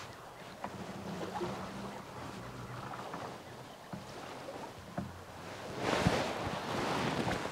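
Low steady hum of a distant engine over wind and small waves. About six seconds in, a louder wash of noise swells up, with a few light clicks.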